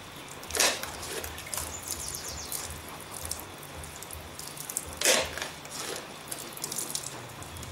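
Rinse liquid splashing onto wet concrete in two short bursts, about half a second in and again about five seconds in, as blackened steel door pulls are rinsed off with a light baking soda rinse. Faint high chirps and ticks throughout.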